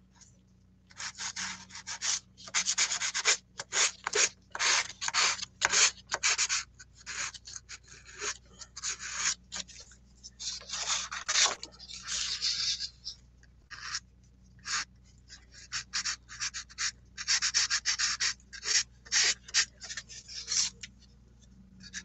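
Soft pastel stick rubbing and scratching across drawing paper in many quick, irregular strokes, starting about a second in, with a few short pauses.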